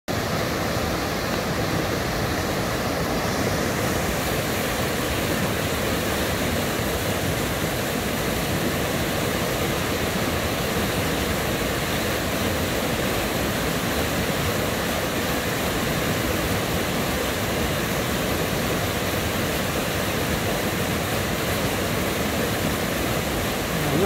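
Small mountain waterfall: white water cascading over boulders and rock ledges into a pool, a steady, unbroken rush.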